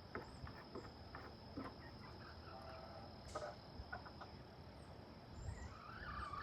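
Faint, steady high-pitched trill of insects, with scattered soft ticks and a faint bird call rising near the end.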